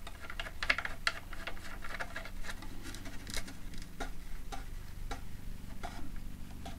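Wire grommet nut being screwed down by hand onto the cord, with a run of small irregular clicks and ticks, a few each second.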